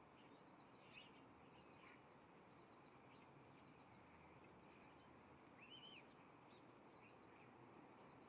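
Faint wild bird calls: short high chips in small quick clusters every second or so, and one louder call that rises and falls about six seconds in, over a steady low hiss.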